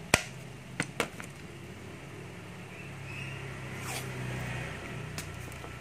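A few sharp clicks and knocks from a cordless drill being handled: a loud click right at the start, a few lighter ones about a second in and one more near the end, over a low steady hum.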